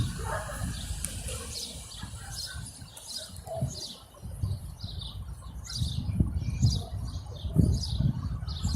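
Small birds chirping over and over in short high notes, with a low rumble underneath that grows louder near the end.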